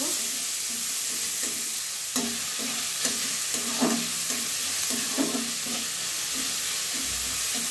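Chopped onions sizzling in hot oil in a metal kadai, stirred with a metal spatula that scrapes against the pan in repeated strokes.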